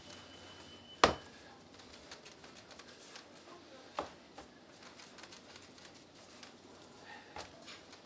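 Soba dough being kneaded by hand in a lacquered kneading bowl: soft pressing and rubbing sounds, with a sharp knock about a second in and a smaller one about four seconds in.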